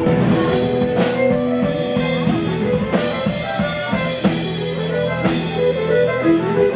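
Live band playing upbeat music on guitar and drum kit, with held notes over a steady beat.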